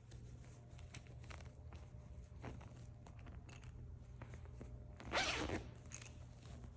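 Plastic bag being handled with small crinkles and clicks, then one brief zip-like rip about five seconds in as the bag is opened.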